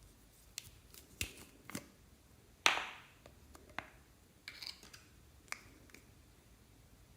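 Clear slime being pressed and stretched by hand, giving scattered sharp clicks and pops, the loudest about two and a half seconds in.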